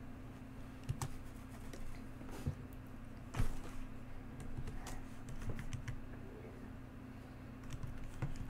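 Computer keyboard keys tapped in slow, irregular single keystrokes, with a faint steady low hum underneath.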